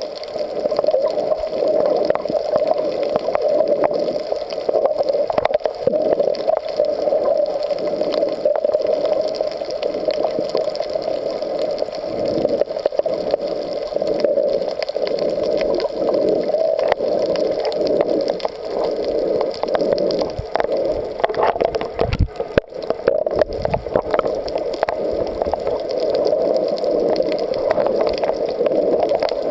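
Muffled underwater sound picked up by a camera held below the surface: a steady water noise with scattered light clicks, and a few low thumps about three quarters of the way through.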